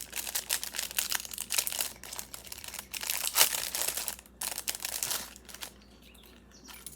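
Packaging crinkling and rustling as earrings are handled and unwrapped, stopping about a second before the end.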